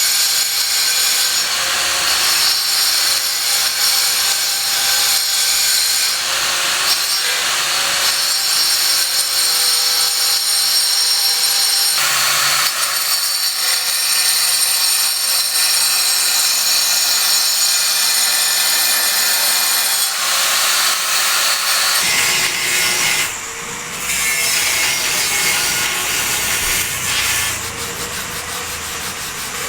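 Steady rasping noise of a cutting or sanding tool at work. It changes character abruptly a few times and dips briefly a little before the end.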